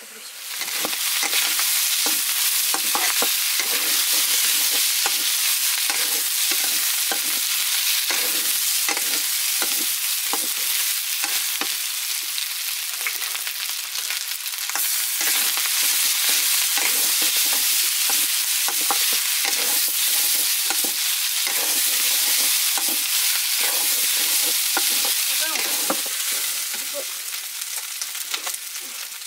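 Food sizzling loudly in hot oil in a pan while it is stirred, with irregular scraping strokes of the spoon against the pan. The sizzle swells up about a second in and eases off near the end.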